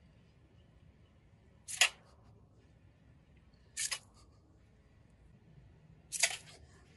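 Pistol-grip garden hose spray nozzle squeezed in three short bursts of spray, about two seconds apart.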